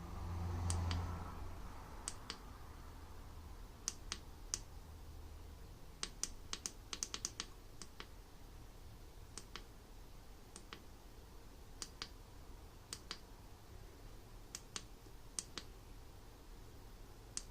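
Scattered sharp clicks from the front-panel buttons of a benchtop PID temperature controller being pressed, sometimes singly and sometimes in quick runs of several. There is a faint low hum that swells about a second in and fades by two seconds.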